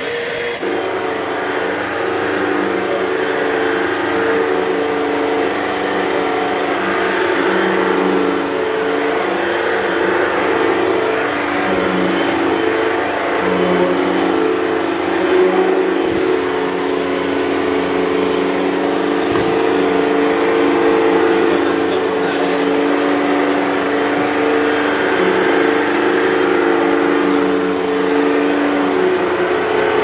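Hoover Total Home Pet upright vacuum running steadily while cleaning a cat-litter mess from carpet, its motor tone shifting slightly in pitch as it works over the floor, with a steady hiss of airflow.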